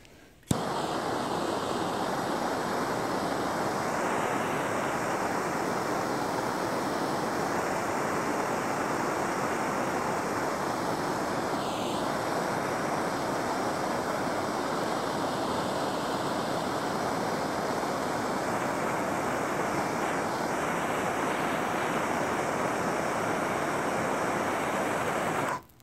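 Handheld propane torch lit with a sharp click about half a second in, then its flame hissing steadily at full blast until it is shut off abruptly near the end.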